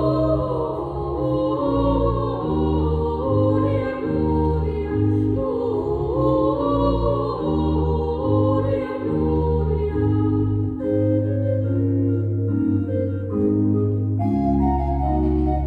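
Soprano and alto singing a Latin sacred duet with pipe organ accompaniment, the organ moving through held bass notes beneath the voices. The singing gives way about two-thirds of the way through, leaving the organ playing on alone.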